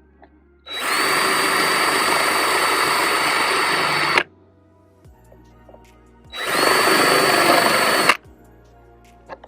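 DeWalt power drill running in two bursts, the first about three and a half seconds long and the second under two, each spinning up quickly to a steady high whine and cutting off suddenly.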